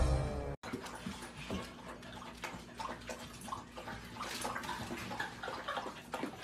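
A puppy lapping and splashing water in a toilet bowl: irregular small wet splashes and laps. A short tail of music cuts off just before it starts.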